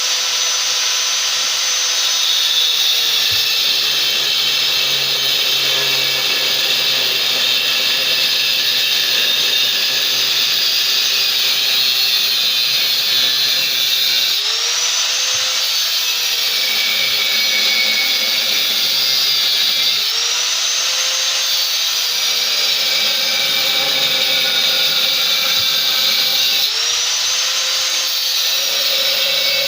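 Angle grinder running continuously, cutting tube with an abrasive disc; its whine swells up and sinks back a few times, about halfway through and again near the end.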